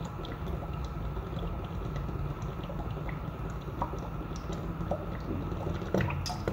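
Cooking oil poured in a thin stream from a plastic bottle into oil already in a pan, trickling steadily over the low steady rumble of a lit gas burner. A few light clicks, and a sharper one near the end.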